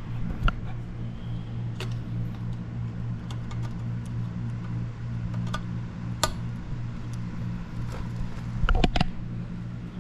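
Scattered sharp clicks and clinks of tools and metal parts being handled at a car's rear wheel hub, with a cluster of louder knocks near the end, over a steady low hum.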